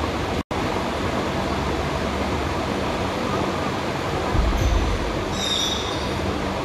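Steady rushing background noise of a large gym hall, with a low thump about four and a half seconds in and a brief high squeak just after.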